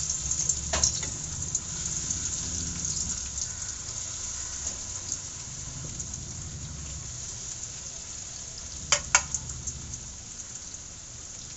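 Semolina- and chilli-coated taro root (arbi) pieces sizzling in hot oil in a steel wok, the sizzle loudest as they are dropped in and then frying steadily. Two sharp clicks about nine seconds in.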